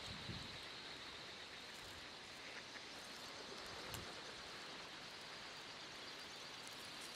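Faint steady rushing hiss from a huge flock of mallards circling overhead and settling into the field, with two soft bumps, about a third of a second and four seconds in.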